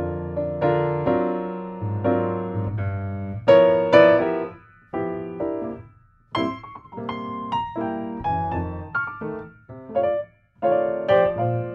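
Background piano music: single notes and chords struck one after another, each fading away, with short pauses about five seconds in and near ten and a half seconds.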